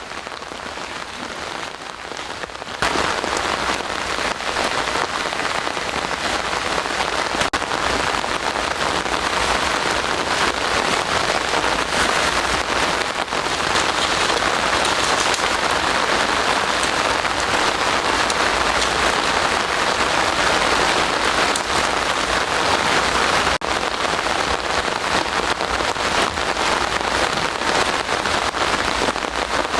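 Steady rain falling, its drops hitting nearby surfaces; it grows louder about three seconds in and then holds steady.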